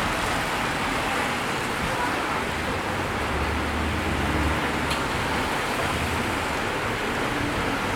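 Steady downpour of rain with traffic passing on the wet road. A low vehicle engine rumble comes through between about three and four and a half seconds in.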